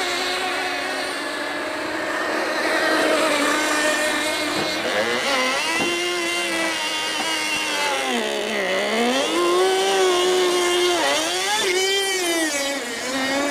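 Small two-stroke engine of a radio-controlled tunnel-hull model boat running at speed on the water, a high buzzing note that dips and rises in pitch several times over the last several seconds.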